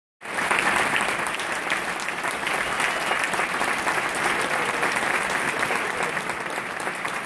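A large audience applauding steadily, a dense patter of many hands clapping.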